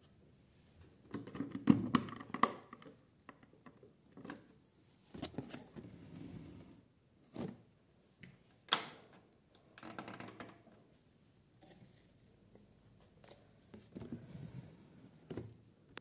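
A plastic toy front-loading washing machine being handled as it is loaded and its door shut: irregular knocks, rustles and sharp plastic clicks, the sharpest about halfway through.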